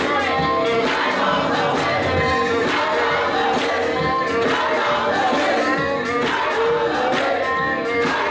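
Gospel choir singing together, with hands clapping steadily on the beat.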